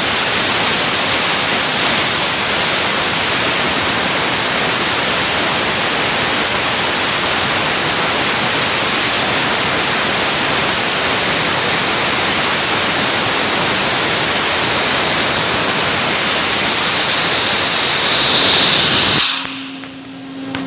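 Dry ice blaster firing through a flat nozzle: a loud, steady hiss of compressed air and dry ice blasting a metal surface. It cuts off about nineteen seconds in, leaving a quieter steady hum.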